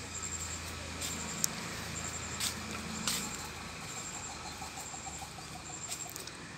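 A low engine hum that fades after about three seconds. Short high chirps repeat throughout, and there are a few light clicks.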